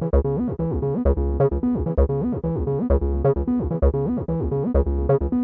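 Electronic synthesizer music with a steady beat and gliding bass notes.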